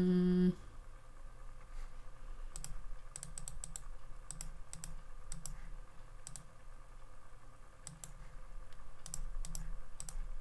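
Typing and clicking on a computer keyboard: keystrokes in scattered small groups. A short hummed 'mm' from a woman comes first.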